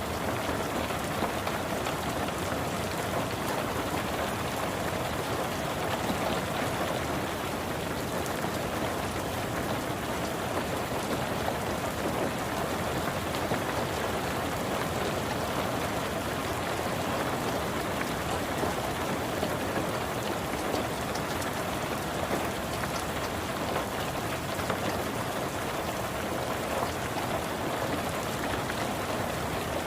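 Steady, unbroken rain falling on a car, heard from inside the car.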